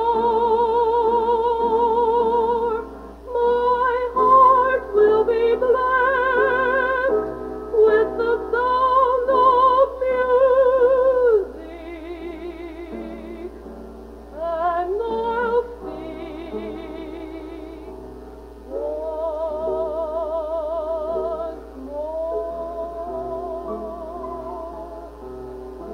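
A young woman singing a show tune solo with strong vibrato, the closing lines of the song: long held notes, a rising phrase about halfway through, and softer singing over the second half. It is an old reel-to-reel tape recording of a live performance, with a steady low hum underneath.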